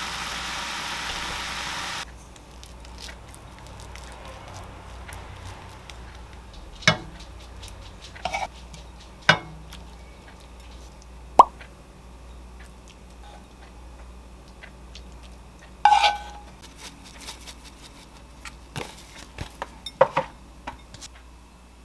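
Enoki mushroom and egg sauce simmering in a frying pan with a steady hiss that cuts off after about two seconds. Then a wooden spoon knocks and scrapes against the pan and a ceramic bowl in scattered sharp clinks as the food is served over rice, with a quick run of light taps near the end.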